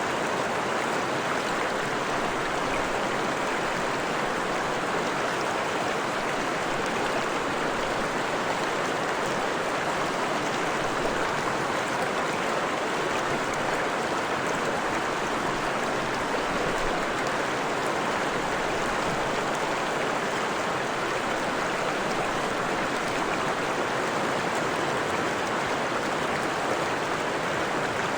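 Forest stream running over rocks: a steady rush of flowing water, even and unbroken.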